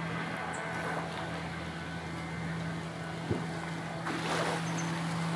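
A steady low hum over an even hiss of wind and sea, with a single click about three seconds in and a brief swell in the hiss about four seconds in.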